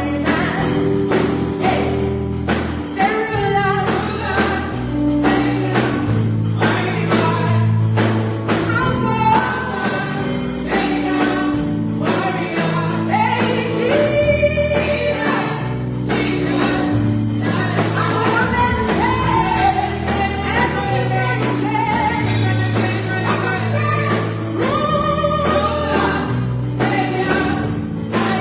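Gospel music: a choir singing over a band with bass and drums keeping a steady beat.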